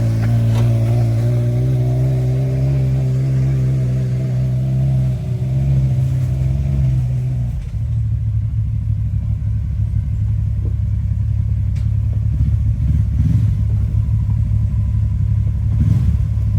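Side-by-side UTV engine running at a steady, held speed, then about seven to eight seconds in it drops to a lower, rougher, uneven rumble for the rest of the time.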